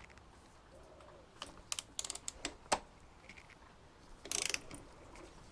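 A ratchet wrench clicking as a plug is wound into a motorcycle's shaft-drive final drive housing. A few separate clicks come first, then a quick run of ratchet clicks near the end.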